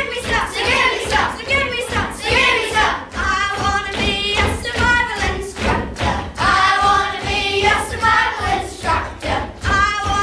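Song with singing over a steady beat, playing loudly in a hall.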